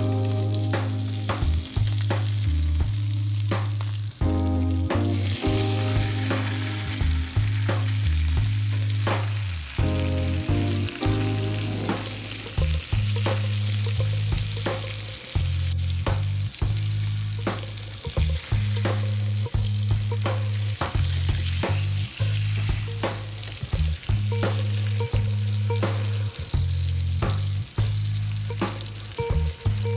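Salmon fillet frying in hot oil in a pan: steady sizzling with many small crackles and pops.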